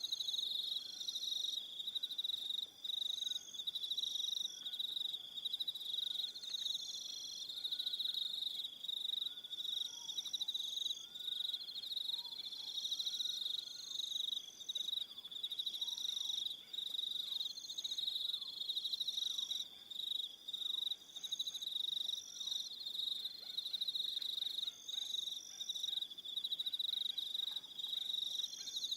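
Evening chorus of crickets: a dense, continuous high trill overlaid by higher chirps repeating about once a second. Faint short lower calls come and go in the first half.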